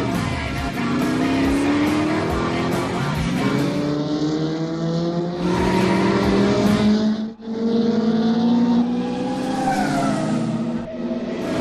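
Formula One car engine at high revs, its pitch climbing repeatedly as it accelerates through the gears. It cuts out briefly about seven seconds in, and the pitch falls near the end.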